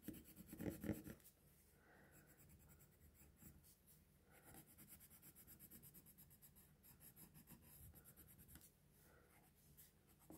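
Coloured pencil shading on paper: faint, quick, even back-and-forth scratching strokes. A short, louder rustle comes about a second in.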